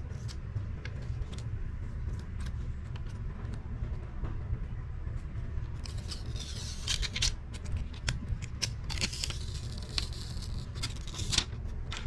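Small clicks and scratchy handling noises from tools and parts in a phone battery replacement. They come in two louder spells of scraping, about six and about nine seconds in, over a steady low hum.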